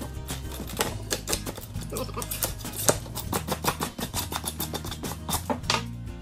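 Stiff metal putty knife chipping and prying at foam board: a rapid, irregular run of crisp clicks and crunches, over background music.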